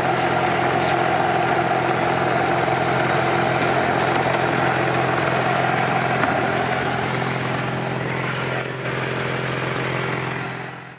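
Electric motor of a concrete vibrating table running with a steady, loud hum, shaking freshly filled tile moulds so that the concrete settles. It stops abruptly at the very end.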